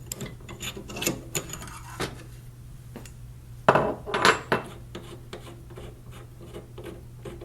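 Metal solenoid valve stem being unscrewed by hand from a sterilizer valve block: small clicks and light rubbing, with a louder rasping scrape about four seconds in. A steady low hum runs underneath.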